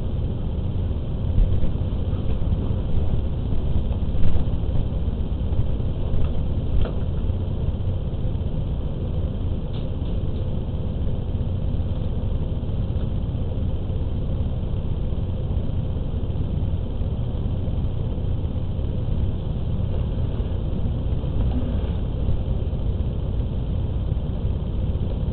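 Steady low rumbling hum from a security camera's built-in microphone, with a few faint knocks in the first ten seconds, the loudest about four seconds in.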